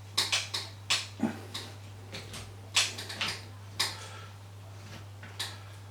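Allen key turning and loosening small screws on an electric scooter's handlebar controls: irregular metal clicks and scrapes, most frequent in the first second and a half and sparser after. A faint steady hum sits underneath.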